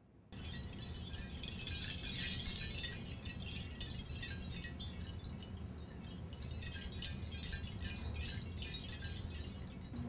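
Many small metal cones on an Ojibwe jingle dress from about 1920 clinking against each other as the dress is shaken, making a bright, continuous jingling shimmer. It swells about two seconds in and again near the end.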